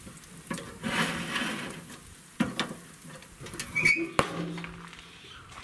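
Metal tongs clicking and scraping on a charcoal grill's grates while turning bacon-wrapped pieces, then the steel lid of a Char-Griller grill is shut with a sharp clang about four seconds in.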